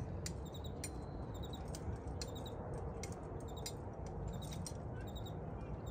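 Wind buffeting the microphone as a steady low rumble, with faint high chirps in quick groups of three repeating through it and a few sharp clicks.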